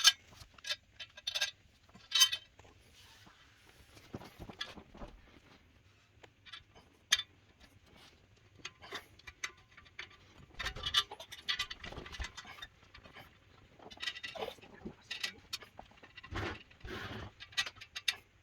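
Irregular small clicks, taps and scrapes as long hex-socket screws and metal wardrobe bars are handled and the screws are fitted into the bar ends by hand.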